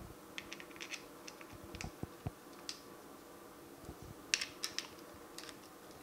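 Scattered small metallic clicks and taps from bolts being handled and started into the shift fork cover of a Muncie four-speed transmission, with a quick cluster of louder clicks a little past four seconds in.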